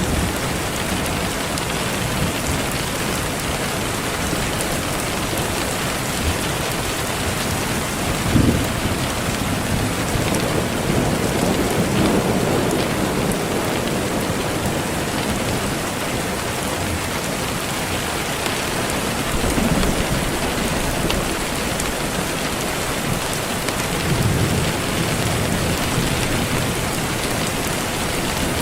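Steady rain hissing, with a few brief low rumbles of distant thunder swelling up and fading.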